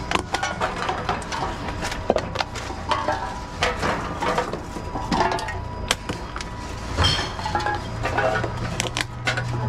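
Empty drink cans and plastic bottles clinking, rattling and crinkling as they are handled in a wire shopping trolley and fed one by one into a reverse vending machine. A low steady hum comes in near the end.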